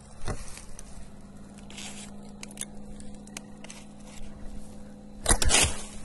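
A green bamboo culm being worked at its base during harvesting: scattered scrapes and crackles, with the loudest burst about five seconds in, over a steady low hum.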